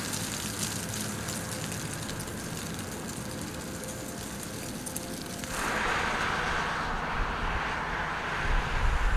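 Outdoor roadside ambience with steady traffic noise. It gets louder and fuller after about five and a half seconds, and a vehicle rumbles past near the end.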